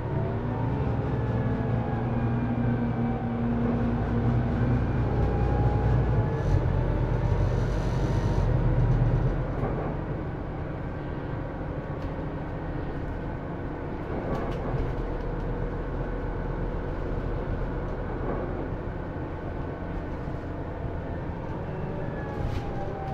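Scania Citywide LF articulated city bus driving, its nine-litre five-cylinder diesel engine pulling hard with its pitch gliding up and down for the first nine seconds or so. It then eases off and runs quieter and steadier, picking up again near the end.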